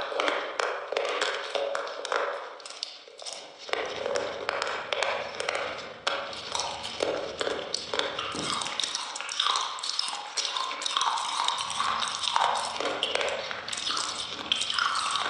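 Close-miked eating sounds: a dense run of wet mouth clicks and lip smacks as someone chews soft food.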